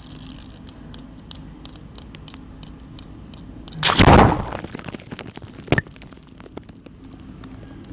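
A balloon bursting loudly about four seconds in, the burst trailing off over about a second, then a single sharper snap a couple of seconds later, over faint ticking.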